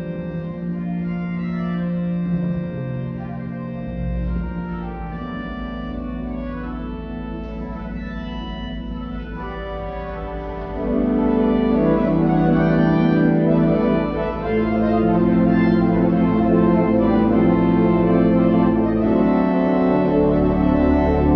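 Pipe organ playing sustained chords over a deep pedal bass that comes in about four seconds in; about eleven seconds in the sound swells louder and fuller.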